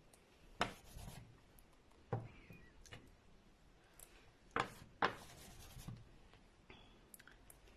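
Round bamboo ring stamped down onto paper on a tabletop to print: four sharp taps spread a second or more apart, with fainter ticks and light scuffing of paper between.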